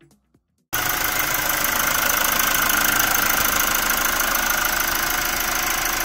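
Mazda 3 engine running steadily, cutting in abruptly about a second in.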